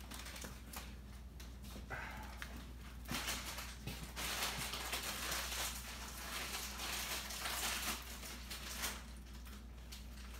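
Small pet bird bathing in a shallow dish of water, beating its wings and splashing in spells of fluttering spray, from about three seconds in to about nine seconds in.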